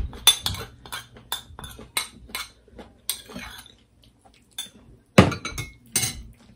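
Metal spoon scraping and clinking against a small ceramic bowl as sauce is scraped out of it, a string of sharp clinks with a louder knock about five seconds in.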